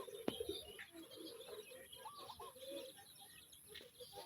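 Chickens making soft, repeated murmuring calls with short rising-and-falling notes, several birds overlapping. A single sharp click comes just after the start.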